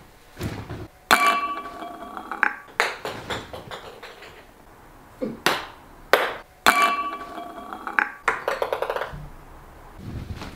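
Ping-pong ball striking and landing in a drinking glass: two sharp hits, each followed by a ringing ping that lasts about a second, and a ball bouncing with quickening clicks as it settles, with a few softer knocks between.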